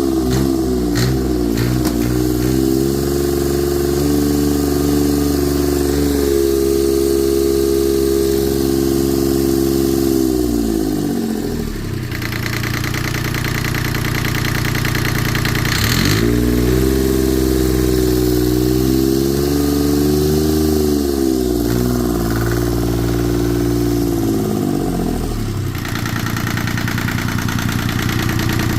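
Yanmar 3GM30F three-cylinder marine diesel engine on its first test run. It is held at raised revs, drops to idle about eleven seconds in, revs up again a few seconds later, then settles back to idle near the end.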